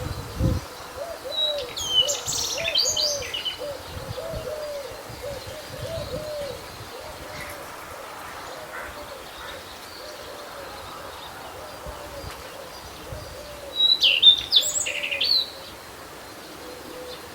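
Birds singing: two bursts of quick, high, sweeping song, about a second in and again about fourteen seconds in, over a long run of low call notes repeated about twice a second. Wind rumbles at the very start.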